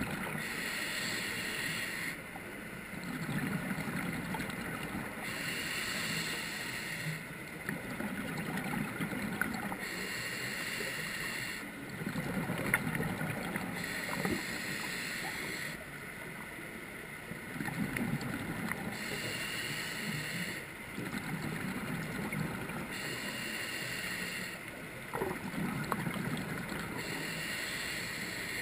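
Scuba diver breathing through a regulator underwater: a hissing inhale alternates with a rumbling burst of exhaled bubbles, about one breath every four to five seconds.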